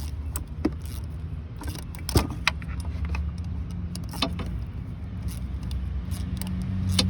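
Scattered sharp metallic clinks and clicks of socket tools and loosened bolts as the thermostat housing bolts are taken out, over a steady low drone.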